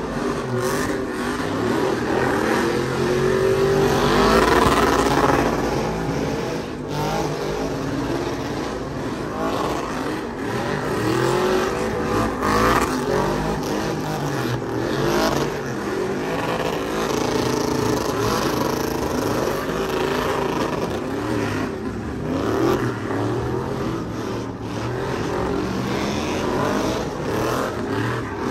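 Truck engine revving hard during a burnout, its pitch rising and falling again and again as the tyres spin and smoke.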